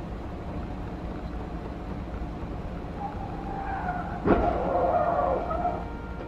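Tyres squealing in a skid, then one sharp crash of a vehicle collision a little over four seconds in, with squealing carrying on briefly after it, over a steady low rumble of road and engine noise heard from inside a car.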